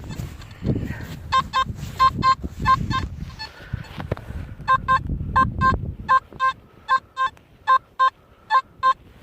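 Metal detector beeping over and over as it is swept across a dig hole, each pass giving a short, even-pitched beep, often in pairs: the target is still in the ground. In the first few seconds there are low rustles and thuds of soil being dug.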